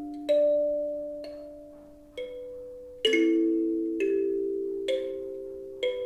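Otozure Sabmarine kalimba (thumb piano) played in a slow melody, a tine plucked about once a second. Each note rings on and slowly fades, with several tines sounding together about three seconds in.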